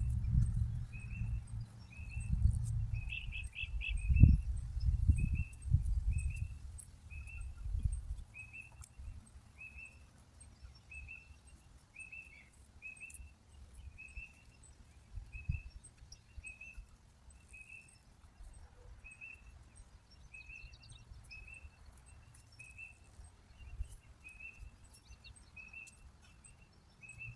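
A bird repeats a short, high chirp steadily, a little more than once a second. In the first eight seconds there is low rustling and knocking from weeds being pulled and handled close to the microphone.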